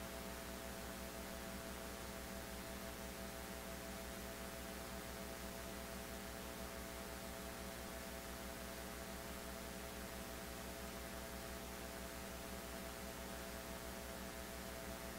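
Steady electrical hum with a faint hiss, unchanging throughout; no other sound stands out.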